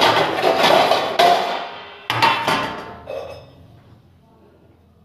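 Metal puja items knocking together and ringing: a run of knocks at the start, then three quick strikes about two seconds in, the ringing dying away soon after.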